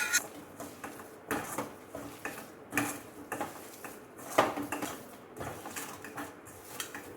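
A metal spoon or spatula scraping and clinking against a metal cooking vessel in irregular strokes, as the sautéed filling is moved and mixed.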